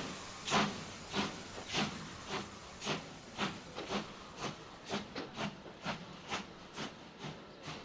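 Disneyland Railroad steam locomotive pulling away: its exhaust chuffs come quicker and quicker as the train gathers speed.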